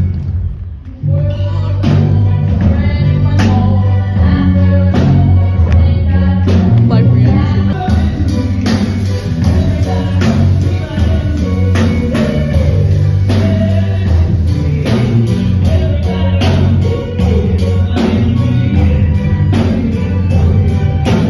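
Live band music with drum kit, guitar and singing, loud and steady, with a short dip in level about a second in.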